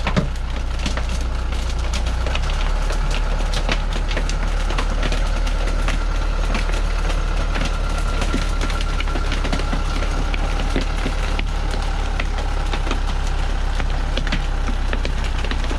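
Heavy truck loaded with acacia logs, its diesel engine running steadily under load as it crawls forward, with its note shifting about two and a half seconds in. Throughout there is frequent snapping and crackling of cut branches crushed under the tyres.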